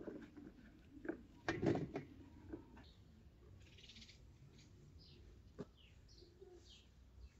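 A few short knocks and handling clatters, the loudest a burst a little under two seconds in and a sharp click near the end, with faint high chirps in the background.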